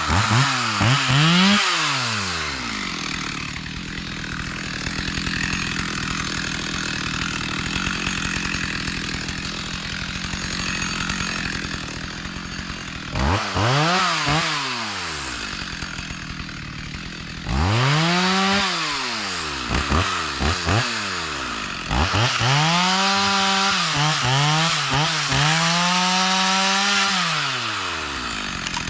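Two-stroke chainsaw revving in repeated bursts that climb and fall. Between the bursts it drops back to a steadier run, and it holds near full throttle for a few seconds near the end.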